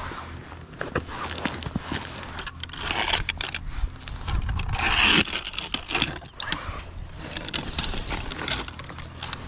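Close scraping and rustling with many small irregular clicks and knocks as litter is picked and scraped off rough concrete by hand and tool, loudest around the middle.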